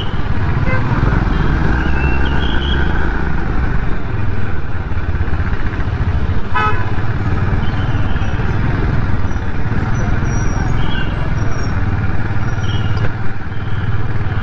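Motor scooter riding slowly through town traffic, its engine running under a steady low wind rumble on the handlebar-mounted microphone. A brief vehicle horn toot sounds about six and a half seconds in.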